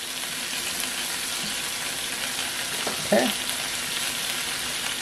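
Sliced onions and bell peppers sizzling in olive oil in a stainless-steel skillet as they sauté: a steady frying hiss. A brief voice sound about three seconds in.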